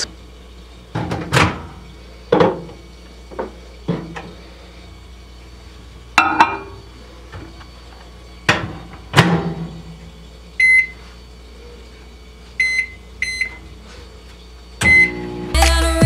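Microwave oven being loaded and started: door and handle knocks and clunks as the door is opened, a mug set inside and the door shut, then four short keypad beeps as the timer is set for one minute. Background music comes in just before the end.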